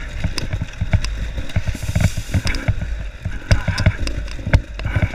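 Dirt bike riding over a rocky trail: steady low engine and wind noise, with frequent sharp knocks and rattles as the bike jolts over stones.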